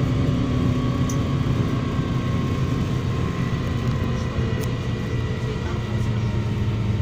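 MAZ-103 city bus under way, heard from on board: a steady engine drone with faint, even drivetrain whines above it.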